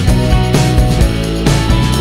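Instrumental background music with held notes and a steady beat.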